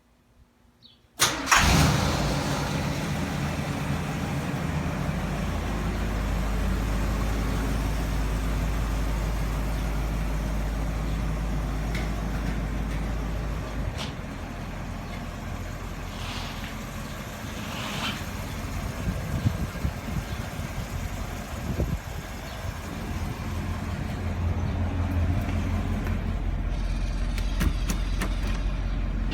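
A KITT replica car's engine starts suddenly about a second in, then runs steadily, its level dipping about halfway through and rising again near the end as the car moves off under its own control.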